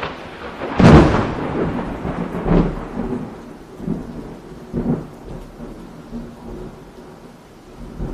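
Rain falling in a steady hiss, broken by several loud rumbling bursts, the loudest about a second in and others about 2.5 and 5 seconds in.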